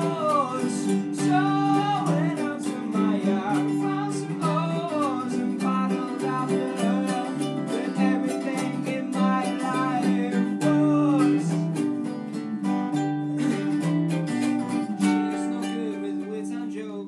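Informal amateur performance of a folk song: a strummed acoustic string instrument playing steady chords, with a voice singing over it in places.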